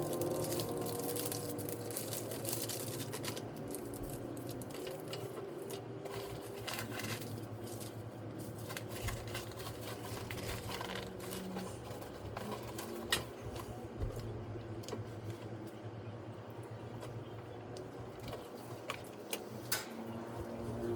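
Scattered light clicks, taps and rustling of objects being handled, over a steady low hum; a few sharper clicks stand out in the second half.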